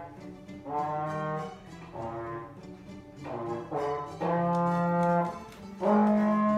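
A brass instrument playing a slow series of held notes, each about half a second to a second long with short breaks between them; the last note is the loudest.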